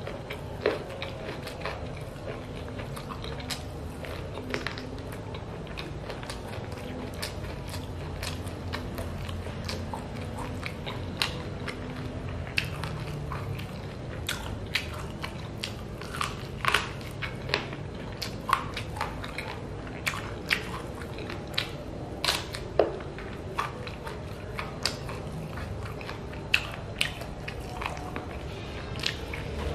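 Close-up eating sounds: chewing and biting on chicken feet coated in chili sambal, with many irregular sharp crunches and wet mouth clicks.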